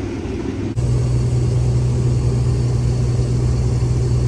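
Case IH 2388 combine running in the corn, a steady mechanical drone. About a second in, the sound changes abruptly to a louder, very even low hum.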